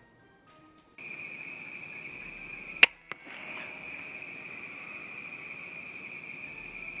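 Steady chirring of crickets at night, with one sharp crack of a .177 air rifle shot about three seconds in, followed at once by a fainter click.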